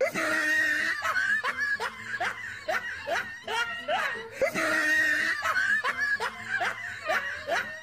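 Laughter, a run of chuckling and snickering that starts suddenly and repeats in the same pattern about every four seconds, as from a looped laugh sound effect.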